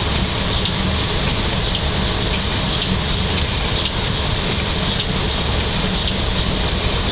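Steady running noise of a train heard from inside its driver's cab: a low rumble with a hiss over it, and rain hitting the windscreen.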